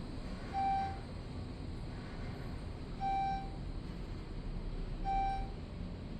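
Passenger elevator car travelling up with a steady low hum, while a short electronic beep sounds three times, about two seconds apart, as the car passes each floor.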